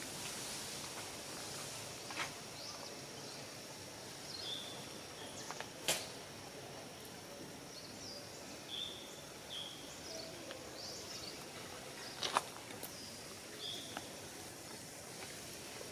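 Outdoor ambience with a faint steady high insect-like tone, a few short high chirps, and two sharp clicks, one about six seconds in and a louder one about twelve seconds in.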